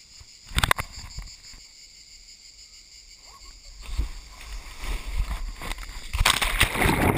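A rider sliding down a wet plastic-tarp water slide, heard from a camera worn on the body: a couple of sharp knocks about half a second in, then rubbing and swishing on the wet plastic building from about four seconds in, and a loud rush of splashing water as the rider flies off into the pool about six seconds in.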